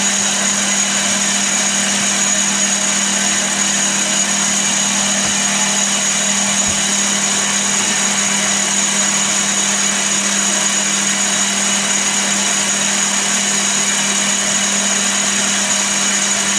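Chester DB10 bench lathe running at a steady speed with its chuck spinning: an even motor and gear whine over a constant low hum, unchanging throughout.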